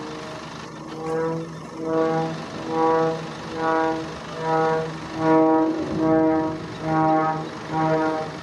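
Small aerobatic propeller plane's engine and propeller drone during a spiralling descent: one steady pitched note that, from about a second in, swells and fades a little more than once a second as the plane turns.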